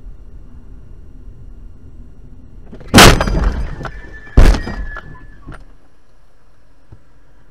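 Car collision heard from inside the dash-cam car: a loud crash about three seconds in and a second heavy impact a second and a half later, each followed by rattling debris. A thin high ringing tone lasts about a second after the second impact, then only a low steady hum remains.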